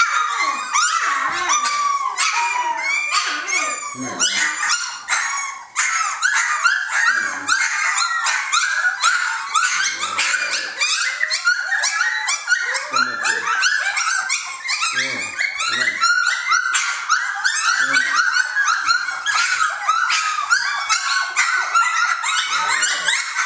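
A litter of three-week-old Jamthund (Swedish Elkhound) puppies whining and squealing together in a constant chorus of overlapping high-pitched cries. The pups are crying for their mother, who comes in to nurse them.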